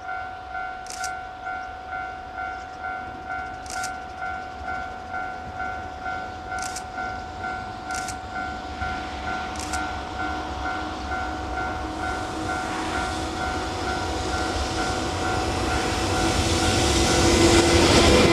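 A railway crossing warning bell rings steadily at a little under two strokes a second as a train approaches. The train's running noise swells over the last several seconds until it is the loudest sound. Short bird chirps break in a few times early on.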